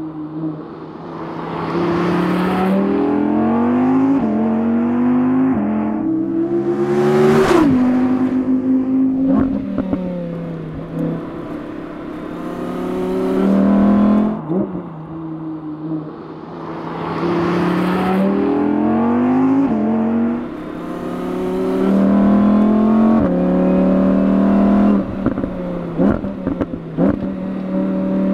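Audi R8 V10 GT RWD's naturally aspirated 5.2-litre V10 revving hard on track, its pitch climbing and then dropping sharply at each gear change, again and again. The sound swells loudest twice, about seven and eighteen seconds in, as the car sweeps close past.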